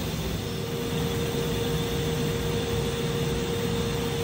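Spindle of a 2006 Haas VR11B CNC machining centre running, a steady whine that steps up in pitch about half a second in and then holds, over a constant mechanical hum.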